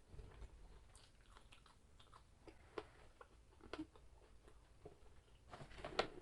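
A person chewing and eating close to the microphone: scattered soft mouth clicks and smacks, the loudest a little before the end.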